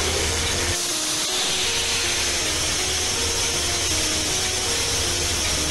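Background music, a tune of short stepping notes, over a loud steady rushing noise with a low hum underneath.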